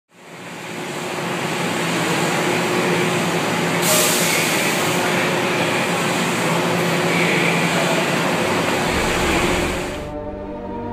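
Loud, steady rushing rumble of a subway train in an underground station, fading in at the start. The rumble drops away about ten seconds in as music begins.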